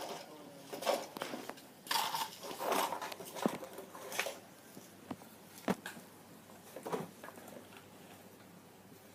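Irregular knocks, sharp clicks and short scraping rustles of toys being handled and moved about, with the sharpest clicks about three and a half and five and a half seconds in; it quietens after about seven seconds.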